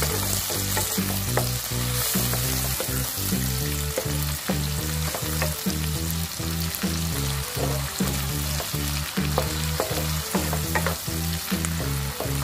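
Shrimp, onion and garlic sizzling in hot oil in a ceramic-coated wok, with a wooden spatula stirring and scraping, giving scattered clicks. Background music with a low bass line plays underneath.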